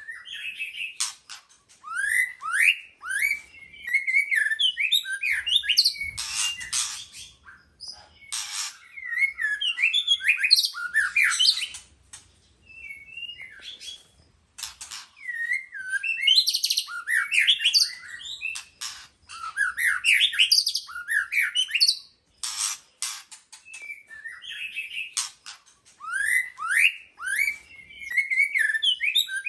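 White-rumped shama singing: phrases of rapid, varied whistled notes and rising sweeps mixed with short harsh chattering notes, separated by brief pauses.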